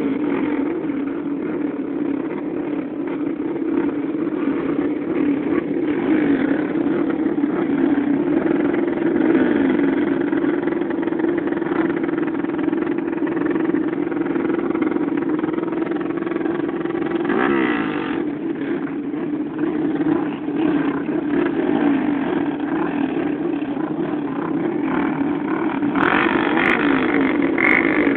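A pack of 125 cc dirt bike engines running together on a start line, a dense steady drone of many engines at once with riders blipping their throttles. One bike revs up sharply about 17 seconds in.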